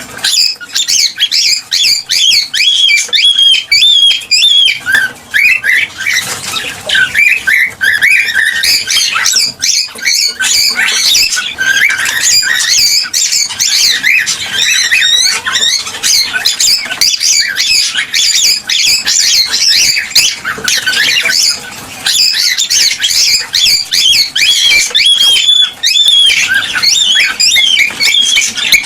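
Cockatiels chattering: a dense, unbroken run of quick overlapping chirps and short whistled calls.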